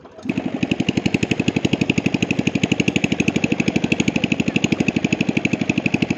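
Small engine running steadily with a rapid, even chugging beat, starting abruptly just after the beginning.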